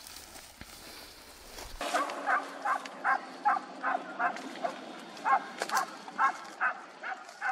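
Faint outdoor noise, then, after a sudden cut about two seconds in, a hunting dog barking in a steady run of about two to three barks a second.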